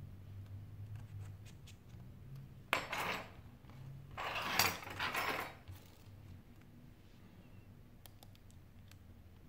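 Small metal repair tools handled on a desk: a sharp tap about three seconds in with a short clatter, then a longer metallic scraping clatter a second or so later.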